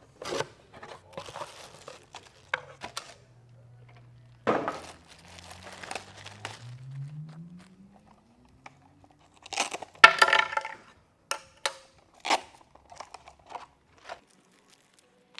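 Packaging being opened and handled: plastic crinkling and tearing with scattered clicks and rustles, in irregular bursts, the loudest about ten seconds in.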